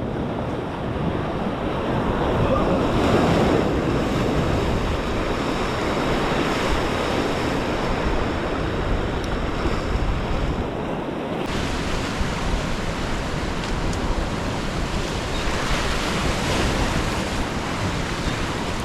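Ocean surf washing in waves against a rock jetty, swelling louder twice, with wind buffeting the microphone.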